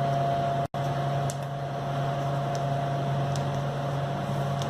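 Steady electrical hum from the fire pump room equipment, with a few faint clicks of keypad buttons being pressed on the controller panel. The sound drops out for an instant under a second in.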